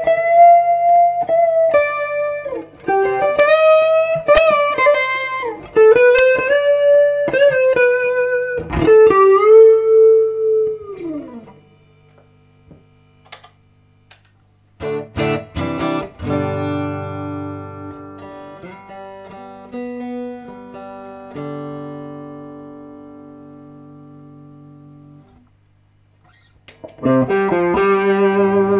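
K-Sound Telecaster played through a Monster El Mocambo amp: a single-note lead line with string bends for about eleven seconds, then, after a short pause, chords left to ring and slowly fade. A new phrase starts near the end, with a steady low hum beneath the playing.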